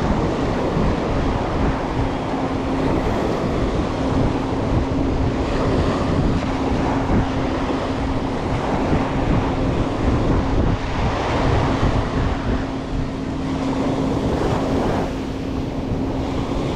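Surf washing up the beach and wind buffeting the microphone, with a steady low hum running underneath.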